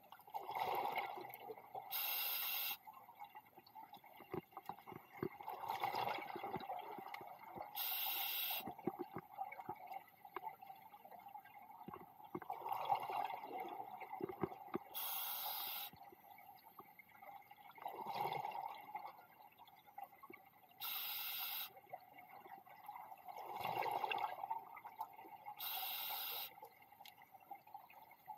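Scuba diver breathing through a regulator underwater: a short hiss on each inhale alternates with a burst of bubbling on each exhale, about five slow breaths.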